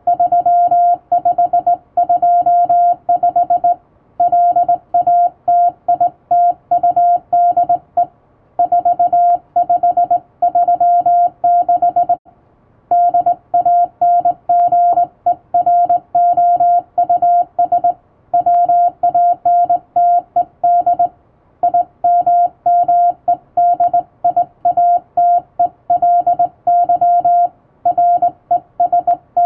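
Hand-sent Morse code on a straight key: a steady mid-pitched tone keyed on and off in dots and dashes, with short gaps between groups, the longest about twelve seconds in.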